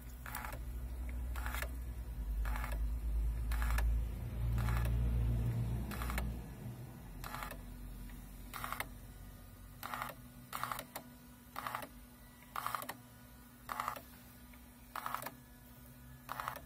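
VAG 1551 diagnostic tester's built-in printer printing a list line by line: short buzzing bursts about once a second as each line prints and the paper feeds. A low rumble sits under the first six seconds.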